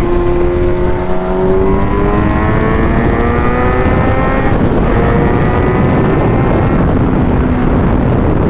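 Kawasaki Z900's inline-four engine under way on the road, pulling through a gear with slowly rising pitch, shifting up a little after halfway, then running steadier.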